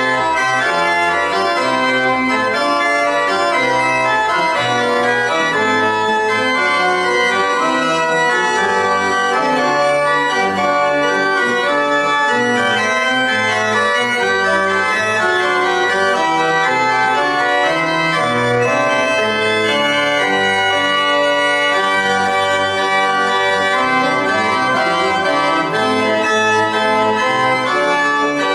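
Church organ played in full, sustained chords with low bass notes moving beneath, at a steady loud level.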